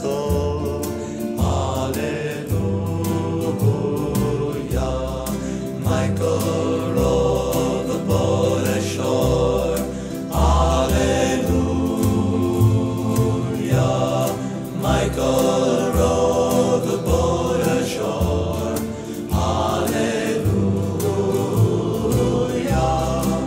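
Early-1960s folk recording: a male vocal group singing in harmony over acoustic accompaniment, with regular low bass notes.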